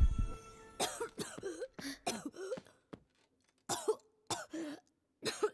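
A person coughing in a series of short fits, with strained voiced breaths between them. The fits come in two clusters, with a pause of about a second in the middle.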